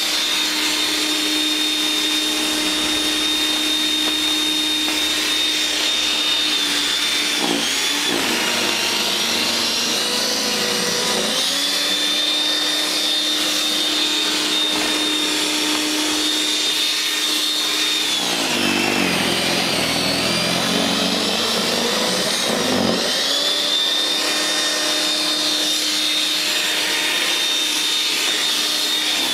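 WEN 5662 13.5-amp electric snow thrower running with a steady high motor whine as it clears snow. Its pitch dips and recovers a few times, most noticeably about two-thirds of the way through.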